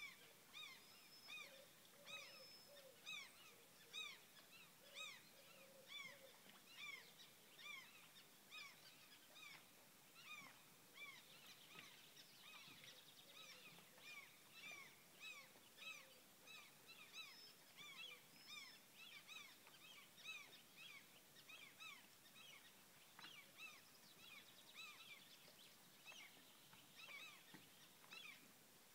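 Faint bird calls: short arching notes repeating about once a second, several calls overlapping, over a faint steady hiss.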